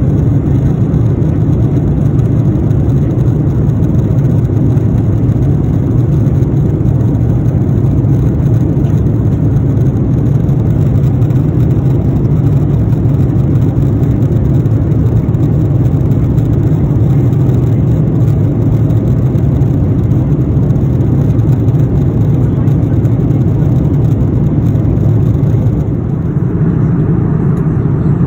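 Steady low drone of a passenger jet in cruise, heard inside the cabin: engine and airflow noise. It dips briefly and changes slightly in tone near the end.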